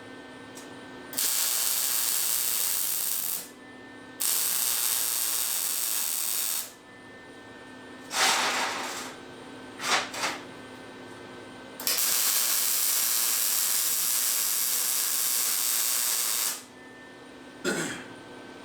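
MIG welder laying three beads on a stainless steel base to fill gaps, each a steady hiss that starts and stops sharply, the last about five seconds long. Two short noises come in a pause between beads.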